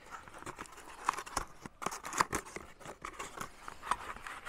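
Packaging being opened and handled by hand: irregular crinkling, rustling and small clicks.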